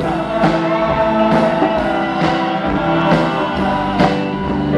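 Live rock band playing an instrumental stretch of the song between sung lines: held chords with a beat marked by sharp hits about once a second.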